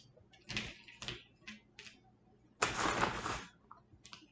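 Seasoning shaken from a shaker over a plate of eggs: a few short shakes, a longer one of just under a second about two and a half seconds in, and two more quick ones near the end.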